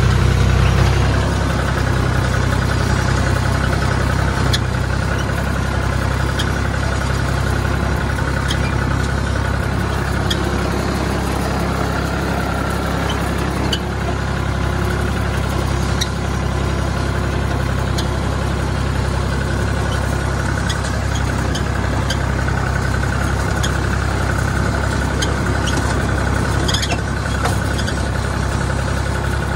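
Universal 445 tractor's diesel engine running steadily under way, heard from inside the cab, with a steady high whine and scattered light clicks over it.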